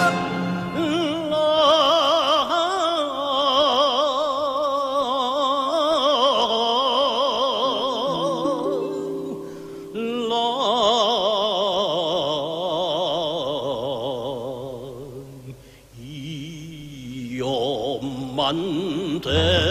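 A man singing long held notes with a wide vibrato over musical accompaniment, in a powerful, operatic style. The singing drops away briefly about ten seconds in and again near sixteen seconds.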